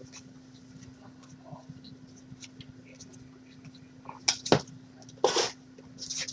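Trading cards being handled on a table: faint scattered clicks and rustles, then a few sharper taps and a short scrape or slide about four and five seconds in, over a faint steady hum.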